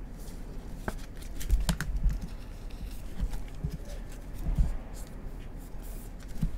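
Scattered light clicks and taps with a few dull knocks and a faint rustle, as a rigid plastic toploader card holder is handled and a trading card is slid into it.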